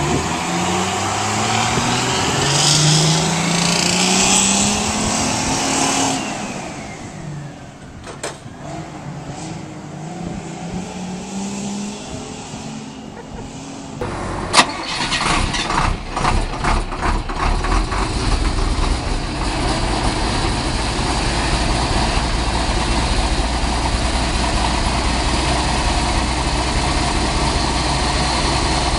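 A Crown school bus engine rises steadily in pitch for several seconds, then falls away. After a sharp click about halfway through, an International DTA360 inline-six diesel stumbles unevenly through a cold start, then settles into steady running with a deep low rumble.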